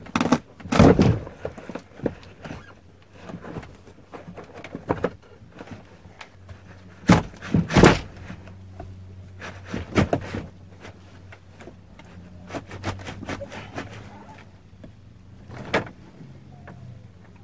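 Scattered knocks, thumps and cracks as trim is pried and pulled off a shuttle bus's fiberglass overhead bin, the loudest about a second in and again about halfway through.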